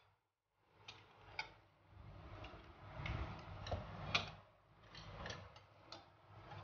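Metal fork mixing raw shrimp in marinade in a ceramic bowl: faint, irregular clinks and taps of the fork against the bowl, starting about a second in.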